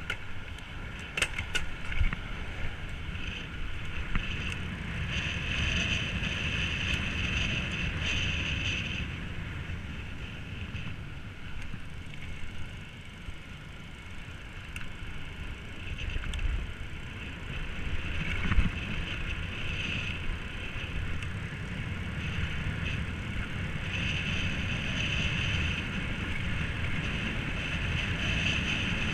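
Electric mountain bike with a Bafang BBS-02 mid-drive motor ridden along pavement, with steady wind rush on the microphone and tyre noise. A high motor whine comes in for a few seconds about a fifth of the way in and again near the end. There are a few sharp knocks, the loudest about two-thirds through.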